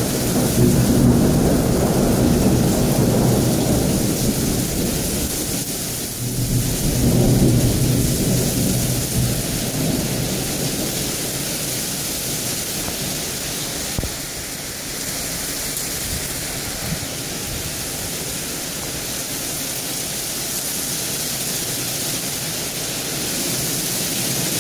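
Heavy rain pouring down onto a street and pavement in a thunderstorm. Thunder rumbles low through the first several seconds, swelling twice before fading, and leaves the steady hiss of the downpour.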